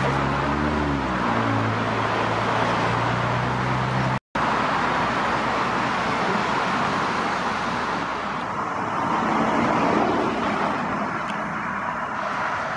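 Road traffic on a busy main road: a steady wash of tyre and engine noise. A heavy vehicle's engine hums low in the first few seconds. The sound breaks off for an instant about four seconds in. A vehicle passes near the end.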